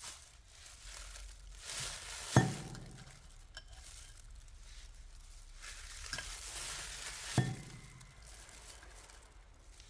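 Metal parts and tools being handled on a workbench: rustling and scraping with light clinks, and two sharp metal knocks about five seconds apart that ring briefly.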